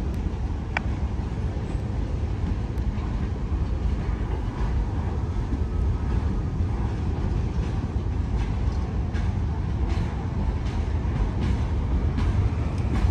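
Freight train cars rolling past: a steady low rumble with scattered wheel clicks, a little more frequent in the second half.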